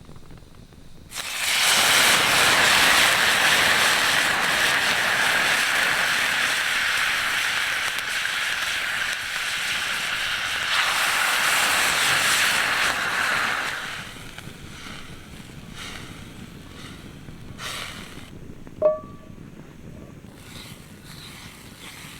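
Coffee poured into hot country-ham grease in a skillet, which sets off a sudden loud hiss and sputter about a second in. The hiss holds for around twelve seconds, then dies down to a quiet sizzle as the red-eye gravy settles. A single sharp metallic clink comes near the end.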